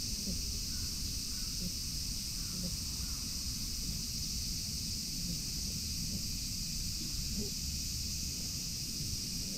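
A steady, high-pitched chorus of cicadas, with a low wind rumble on the microphone.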